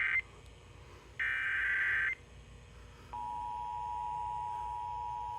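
Emergency Alert System broadcast tones: a harsh, buzzy data burst of the EAS header ends just as the sound begins, a second burst lasts about a second, starting about a second in, then about three seconds in the steady two-tone EAS attention signal starts and holds. Together they announce an emergency alert, here a flash flood warning.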